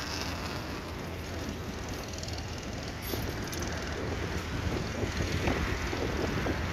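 Wind buffeting the microphone over a steady low rumble of city traffic, the gusts growing stronger in the second half.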